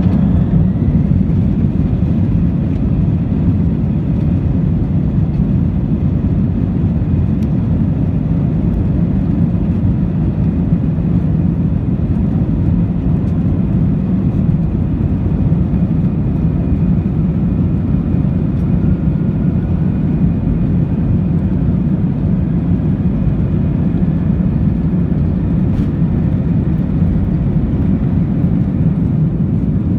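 Airbus A321 jet engines at takeoff power, heard from inside the cabin during the takeoff roll: a steady loud rumble with a faint engine whine that rises slowly in pitch.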